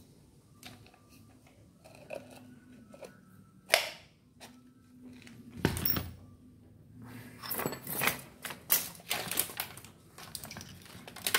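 Irregular clicks and knocks of hard parts being handled and fitted together while a rotary hammer drill is reassembled. There is a sharp knock about four seconds in, another near the middle, and a quick run of clicks in the last few seconds.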